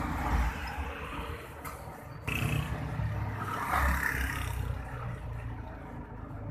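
Rumbling background noise that swells and fades, with a sudden rise in level about two seconds in.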